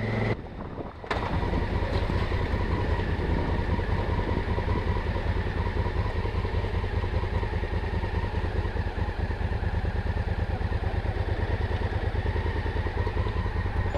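Honda Africa Twin adventure motorcycle's parallel-twin engine idling steadily, picking up after a short break about a second in.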